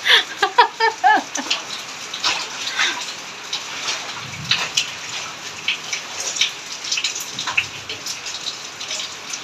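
Steady rain falling, with irregular splashes and drips of water as clothes are hand-washed and wrung out in plastic basins.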